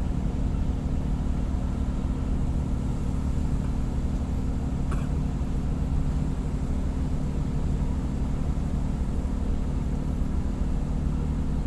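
The ship's diesel propulsion engine running with a steady, low drone that holds even throughout.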